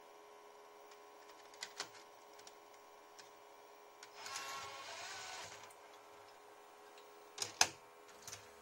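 Sony DHR-1000 DV video deck loading a mini DV cassette. There are a couple of light clicks as the cassette is pushed into the slot, then the mechanism whirs for about a second and a half as it draws the cassette in, and two sharp clunks near the end as it seats. A faint steady hum runs underneath.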